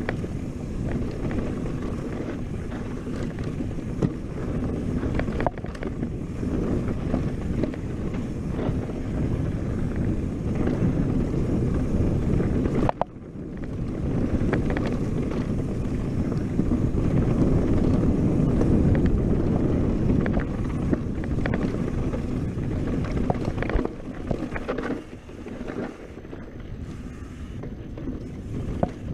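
Wind buffeting the microphone and a steady rumble of tyres on a dirt singletrack as a mountain bike descends fast, with scattered clicks and rattles from the bike over rough ground. The rumble drops briefly near the middle.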